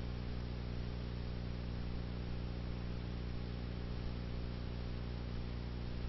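Steady electrical mains hum with a stack of even overtones, under a constant hiss: the background noise of a blank stretch of an old video recording.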